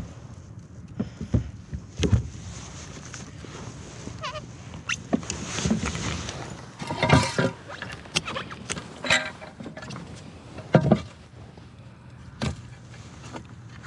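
Irregular knocks, clunks and rattles of gear being handled in a plastic fishing kayak, with a few short squeaks.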